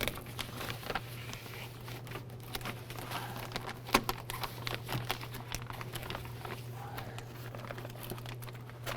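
Plastic door water shield crinkling and rustling as it is handled and pulled back, with scattered small clicks.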